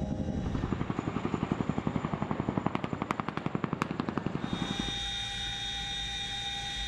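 CH-47 Chinook tandem-rotor helicopter: rapid, even rotor-blade thumping at about ten beats a second. About four and a half seconds in, this gives way to a steady high-pitched whine of the turbines and transmission, heard from inside the cabin.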